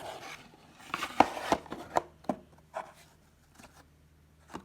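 Hands opening and handling a box of trading cards: a run of sharp clicks and some rustling of cardboard and wrapper from about a second in, then a lull with one more click near the end.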